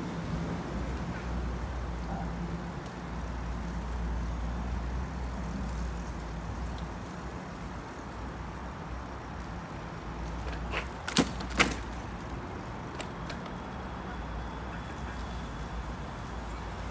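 Steady rumble of a bicycle rolling over wet paving, with wind on the microphone. A little past the middle come two sharp knocks about half a second apart, the loudest sounds here.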